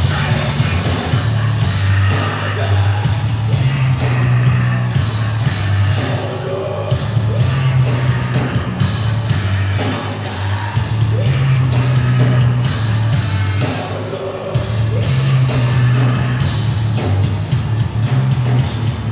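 Heavy metal band playing live: distorted guitars, heavy bass and drums, with sung and shouted vocals.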